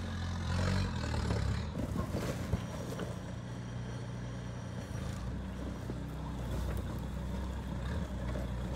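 Sherp amphibious all-terrain vehicle's diesel engine running steadily as the vehicle drives slowly off the grass onto a dirt road.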